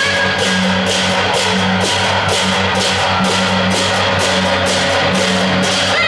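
Taiwanese temple-procession percussion ensemble playing: hand cymbals crash in a steady beat about twice a second over a low, sustained drum and gong.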